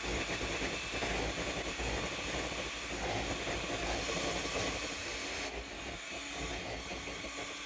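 Electric hand mixer running steadily, its twin beaters whisking thick chocolate cake batter in a mixing bowl.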